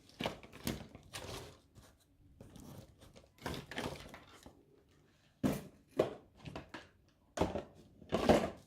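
Handling of a multimeter's plastic case and parts during reassembly: irregular clicks, knocks and rustling, with a few louder knocks in the second half.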